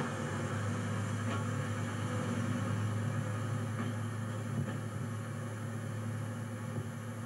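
A steady low hum with a hiss over it and a few faint clicks.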